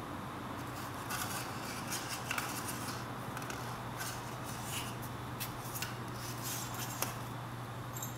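Kittens scrabbling about: scattered light scratches, rustles and clicks of claws and paws, over a steady low hum.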